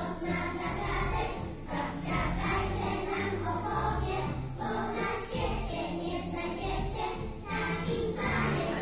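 A group of young children singing together to a recorded backing track with a steady bass line.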